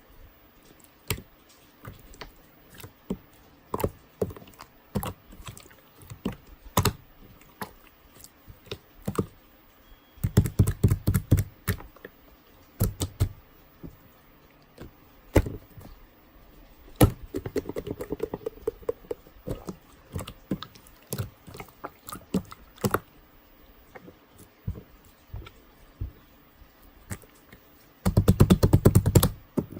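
Hands squeezing and poking slime, making scattered sharp clicks and pops. Twice the popping runs together into a fast crackle, once about a third of the way in and again near the end.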